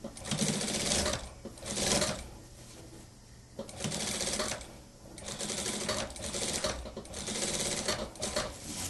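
Industrial sewing machine stitching a seam in a cotton dress shirt, running in several short spurts with brief stops between them as the fabric is guided by hand.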